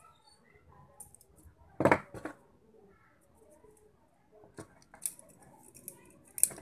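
Needle-nose pliers clicking and scraping on the metal carbon-brush holder of a hand mixer's motor, a handful of sharp metallic clicks with the loudest about two seconds in. The brushes being worked out are worn down, the cause of the mixer's slow running.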